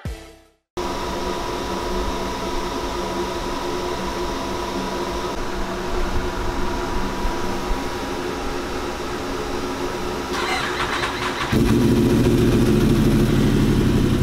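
Yamaha R1M's crossplane inline-four running on a chassis dyno, cutting in suddenly and holding a steady note, then getting louder about eleven and a half seconds in with the rear wheel spinning on the roller.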